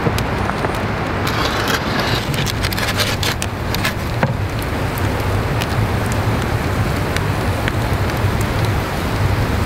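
Wood fire burning in a masonry pizza oven: a steady low roar of flames with sharp crackles and pops from the burning logs, thickest between about one and four seconds in.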